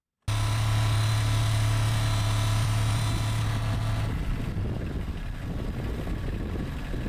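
Kubota LX compact tractor's diesel engine running, cutting in abruptly with a steady low hum. About four seconds in the hum falls away and the engine settles to a quieter, rougher rumble.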